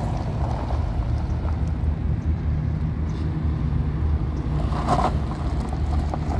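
An engine idling: a steady low rumble.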